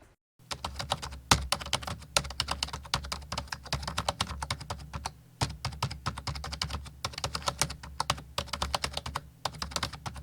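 Typing on a computer keyboard: fast runs of key clicks with a couple of short pauses, over a low steady hum.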